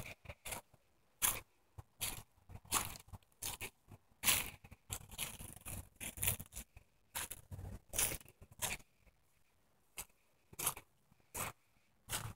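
Footsteps crunching through dry fallen leaves and grass: an uneven run of short, sharp crunches, about one or two a second.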